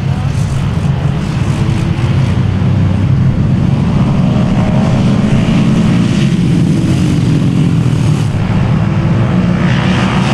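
Several sport quads (ATVs) revving hard together as they launch and race side by side in a sand drag race, the engine pitches shifting as they accelerate.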